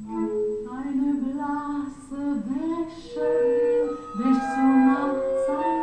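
Music: a voice singing a melody in long held notes, part of an operetta.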